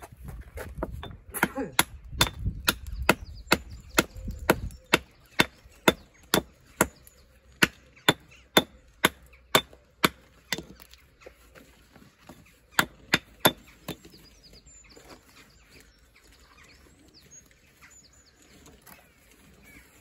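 Hammer striking stone in a steady run of sharp, ringing knocks at about two a second, trimming a walling stone. It pauses, then gives three quicker strikes, and after that only faint scuffing and handling of stone follows.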